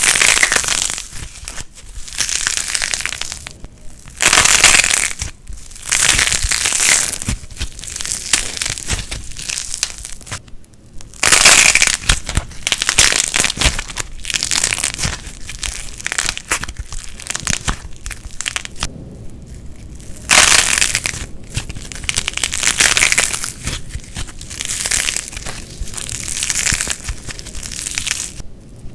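Light plasticine being squeezed and pulled apart by hand, giving a dense, high crackle. The crackle comes in repeated bursts of a second or two, with short pauses between them.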